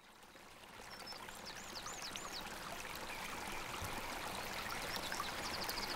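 Running water trickling, fading in at the start, with birds calling over it. One bird gives four quick arched high calls about a second and a half in, and a faster run of high bird notes comes near the end.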